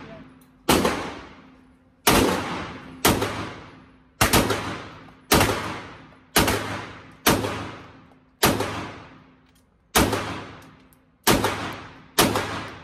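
A Sig Sauer P320 M17 9mm pistol fired in slow, steady succession, about eleven shots roughly a second apart. Each shot has a long echoing tail in an indoor range.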